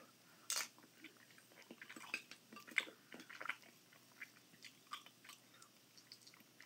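A person eating: quiet chewing of a mouthful of eggs and ramen noodles, with small irregular clicks and taps of a fork against a glass baking dish. The loudest clicks come about half a second in and just before three seconds.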